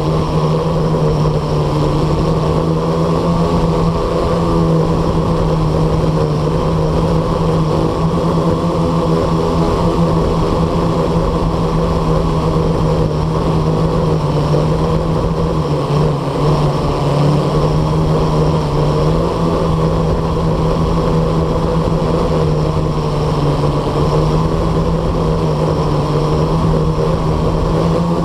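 Blade 350 QX quadcopter's four electric motors and propellers humming steadily in a hover, heard loud and close from the camera on board. The pitch dips briefly a few times as it holds position.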